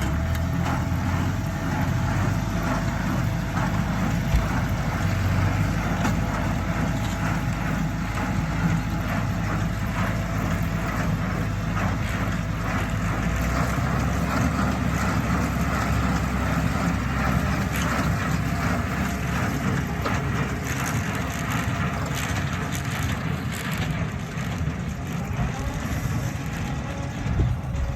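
Tractor engine running steadily under load as it pulls a small square baler through a windrow, with the baler's intermittent mechanical clicks and knocks over the drone.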